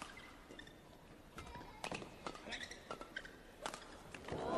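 Badminton rally: rackets striking the shuttlecock in a quick exchange, several sharp hits spaced about half a second to a second apart, along with players' footsteps and shoe squeaks on the court. Crowd noise starts to swell right at the end.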